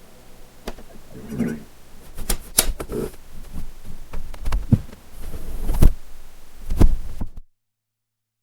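Irregular knocks, taps and low thumps, with no music tones under them; the loudest come about six and seven seconds in, and the sound cuts off abruptly about seven and a half seconds in.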